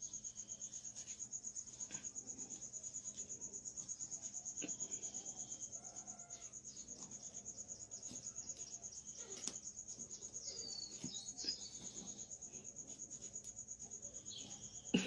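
Insect chirping: a faint, steady, high-pitched trill pulsing rapidly and evenly, with a few soft clicks mixed in.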